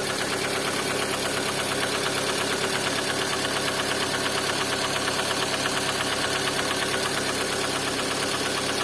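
First-generation Lada Kalina engine running steadily with a rapid, even knock that keeps time with the engine: the knock the owner is recording as a fault.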